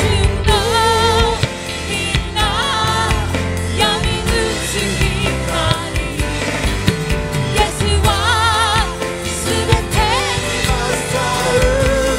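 A live worship band playing a contemporary Christian song: sung lead vocals with vibrato over drums and guitar.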